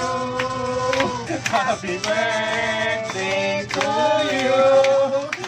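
A small group of men and women singing together, with long held notes, clapping along.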